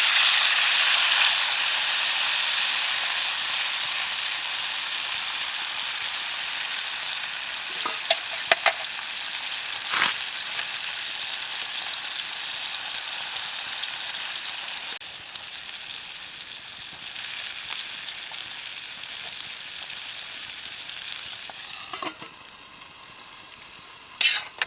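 Food sizzling in a hot frying pan over a campfire: the sizzle jumps up loud at the start and slowly dies down, dropping again about halfway through. A few sharp knocks sound now and then over it.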